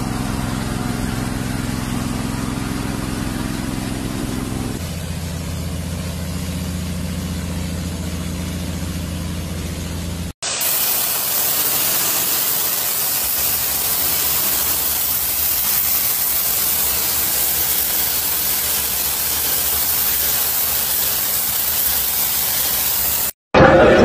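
A pressure washer at work. First its motor runs steadily under the spray of a wide multi-nozzle spray bar, the tone shifting about five seconds in. Then, after a cut, comes the louder, even hiss of a single high-pressure jet blasting dirt off stone tiles.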